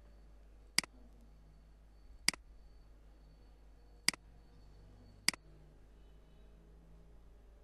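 Computer mouse button clicked four times, sharp single clicks about a second or two apart, over faint room hum.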